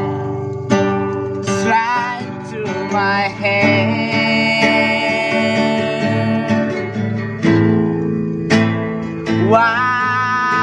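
Acoustic guitar strummed in a steady rhythm, with a voice singing long, sliding held notes over it, most clearly about two seconds in and near the end.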